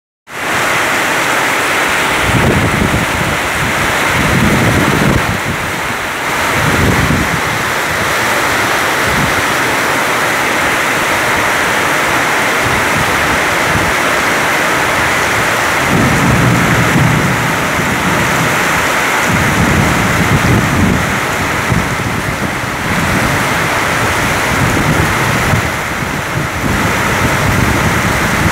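Heavy rain pouring down steadily in a thunderstorm, with low rumbles swelling and fading several times, at about two to seven seconds in and again around sixteen to twenty-one seconds.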